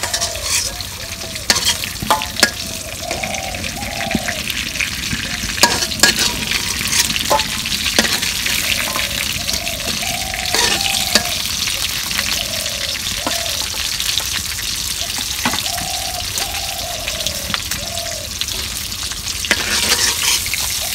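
Tilapia steaks sizzling steadily in hot oil in a steel karai, with a metal spoon scraping and clinking against the pan now and then as the fried pieces are lifted out.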